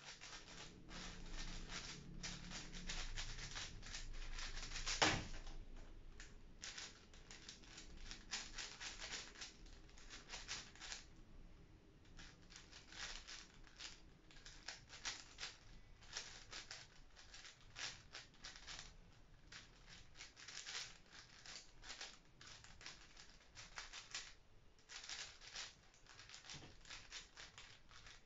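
Plastic 5x5 speedcube being turned fast, a dense run of rattling clicks and clacks from its turning layers. There is a single sharp knock about five seconds in, where the solve ends and the timer is stopped, and the turning carries on after a brief pause about twelve seconds in.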